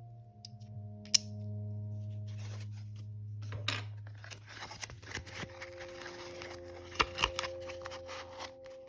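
Soft background music with long held notes, which shift to a new chord about halfway through. Over it, rustling and tearing handling noise with a few sharp clicks, the loudest about a second in and about seven seconds in.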